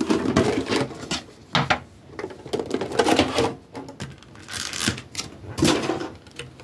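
Pokémon card packaging and the tin's contents being handled: irregular rustling and clattering with several sharp clicks and knocks.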